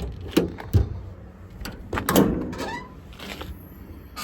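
Metal knocks and clanks of a service-body compartment door being unlatched and swung open: three sharp knocks in the first second, then a scraping sound with a short squeak about two seconds in.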